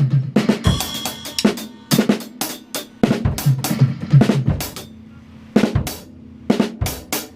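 Drum kit playing a groove of bass drum, snare and hi-hat strokes. It breaks off for about a second near the middle, then picks up again.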